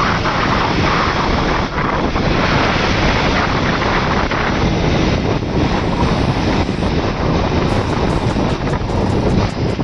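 Heavy wind buffeting the microphone on a moving motorcycle, with the bike's running and road noise beneath, steady throughout.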